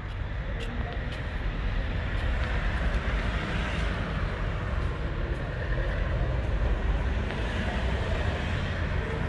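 Steady outdoor rumble with a rushing noise on top, the kind of background roar of a street, growing a little louder a couple of seconds in.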